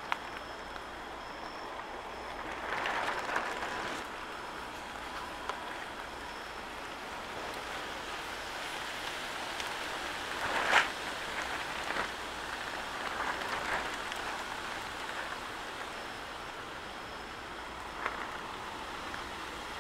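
Steady rain falling, with a few sharp taps of drops; the loudest tap comes about eleven seconds in.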